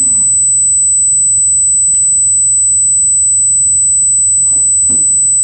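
Room tone in a pause with no speech: a steady high-pitched whine over a low hum, with a couple of faint ticks.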